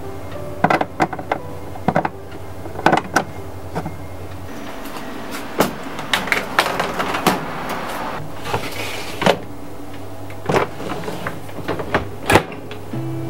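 Hard plastic parts of a dishwasher's filter and spray-arm assembly clicking and knocking as they are fitted back into place, then the plastic-coated wire dish rack rattling and scraping as it is set back into the dishwasher. Sharp clicks come irregularly throughout.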